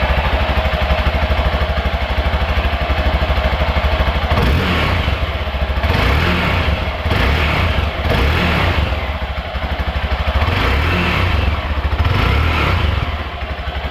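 Hero XPulse 200 fuel-injected single-cylinder engine running through its stock exhaust: idling steadily, then revved in several short throttle blips from about four seconds in.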